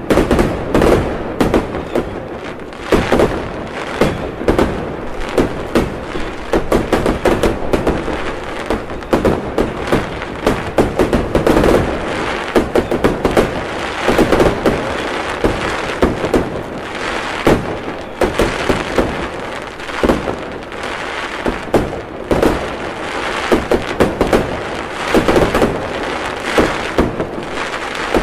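Aerial fireworks display: shell bursts and crackling in a dense, unbroken run of bangs, several a second, with no pause.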